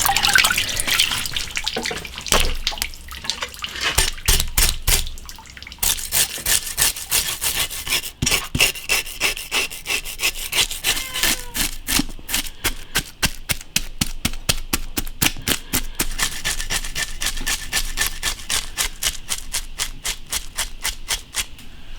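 A knife scraping scales off a large fish in quick repeated strokes. The strokes are irregular at first and settle into a steady rhythm of about four a second in the second half.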